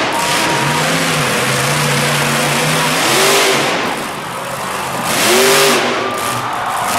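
Monster truck engine revving hard. It surges up in pitch twice, about three seconds in and again about two seconds later, with a brief dip in between.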